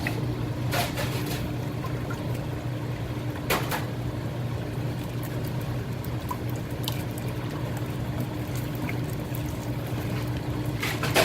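Liquid shake mix being poured into a shake machine's hopper, a steady pouring sound over a constant low machine hum, with a few brief knocks.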